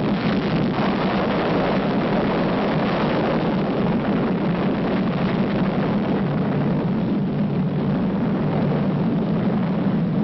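Sound effect of an atomic bomb blast: a steady, loud rumbling noise that neither swells nor fades, heaviest in the low range.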